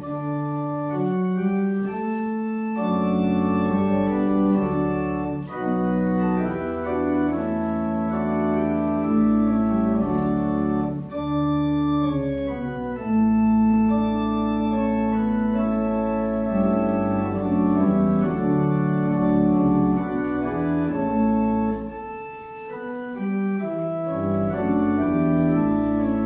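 Church pipe organ playing a hymn in sustained chords that change every second or so, with a brief softer passage about 22 seconds in.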